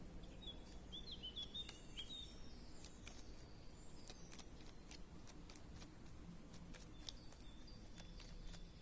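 Faint birds chirping and calling, a flurry of short chirps in the first couple of seconds and thin whistled notes later, with scattered light clicks.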